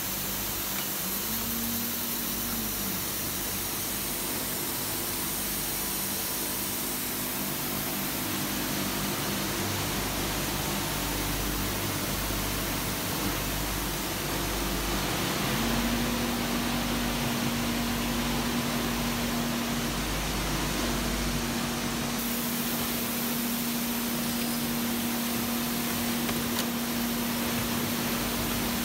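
Coil-nail collating and coiling machinery running: a steady noisy whir with a constant low hum.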